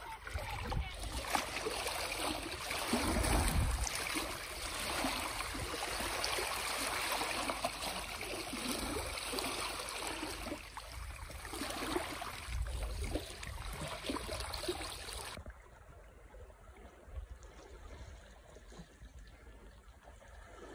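Shallow seawater washing and trickling over shoreline rocks, a steady wash with a couple of low rumbles. About three-quarters of the way through it drops suddenly to a much fainter wash.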